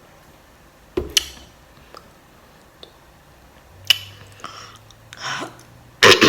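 Eating and handling sounds at a close microphone: a few sharp clicks and small wet mouth sounds, then a louder short throaty noise near the end.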